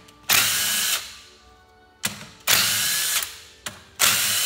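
Cordless DeWalt power driver spinning out the clutch spring bolts on a Honda Shadow VT1100 clutch pressure plate, in three short runs, each under a second and about a second and a half apart.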